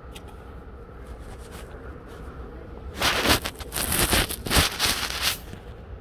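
Loud rustling and crackling close to the phone's microphone for about two and a half seconds starting about three seconds in, the sound of the recording phone being handled or rubbed. Before it, faint ticks over a low steady outdoor background.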